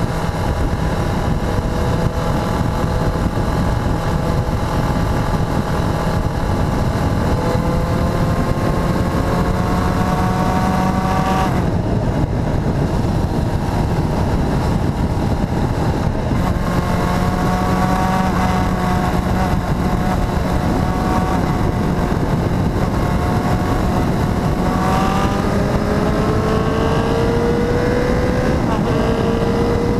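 Motorcycle engine running under way, with a steady rush of wind over the camera microphone. The engine note climbs slowly. About twelve seconds in, its upper tones drop away for a few seconds. The note then returns and climbs again, more steeply near the end.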